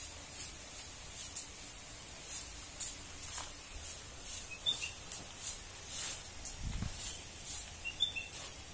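Footsteps crunching on dry ground, about one to two steps a second, with a few faint bird chirps.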